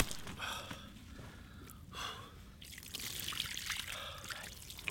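Water poured from a collapsible fabric bucket onto a carp lying on an unhooking mat, splashing and trickling from about three seconds in. Short breaths or gasps come before it.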